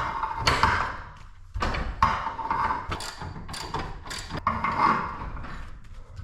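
Garage door torsion spring being wound: a series of sharp knocks and clicks, roughly one a second.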